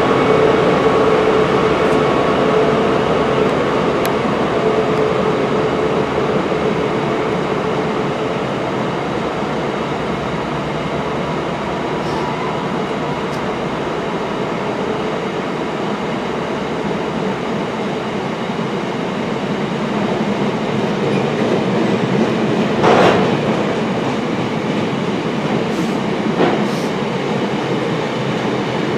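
Class 43 HST diesel power cars pulling a train out of the platform. The engine drone, with a steady tone in it, fades as the train draws away, and two sharp clacks come near the end.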